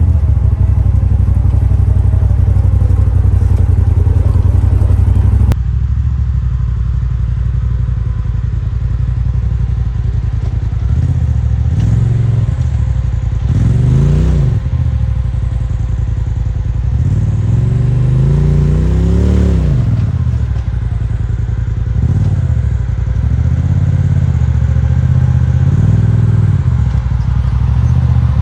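Polaris RZR side-by-side engine running under load, the revs rising and falling several times as the throttle is worked.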